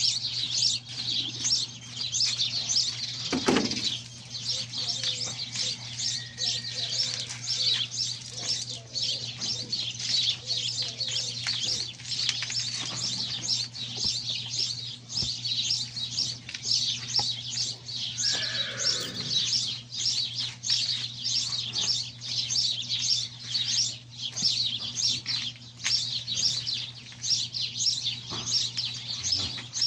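Many small birds chirping at once, a dense, rapid, unbroken chatter, over a steady low hum.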